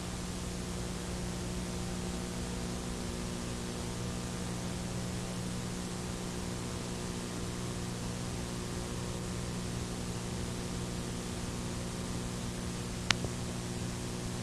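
Steady hiss with a low mains hum, the noise floor of an analogue video-tape transfer, with no game sound or commentary. A single sharp click near the end.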